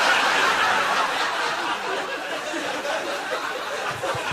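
Theatre audience laughing at a joke's punchline, strongest at first and slowly dying down.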